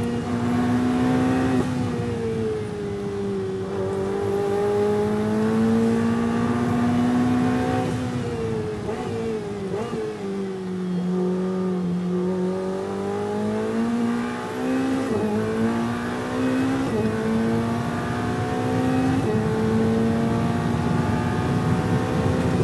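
Ferrari 488 Challenge Evo's twin-turbo V8 heard from inside the cockpit at racing speed. The engine note drops as the car brakes and downshifts for a slow corner, lowest about halfway through, then climbs under full throttle with a sharp break at each quick upshift.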